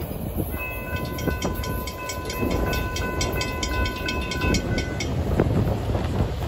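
Railroad crossing warning bell ringing with quick, even strikes while the gate arms go up after the train has cleared, then stopping about five seconds in. A low steady rumble runs underneath.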